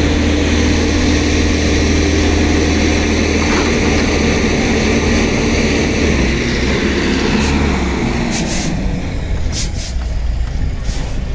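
Diesel engine of an Escorts F15 pick-and-carry crane running hard under load as it tows a truck on a rope, easing off about two thirds of the way in. A few short hisses come near the end.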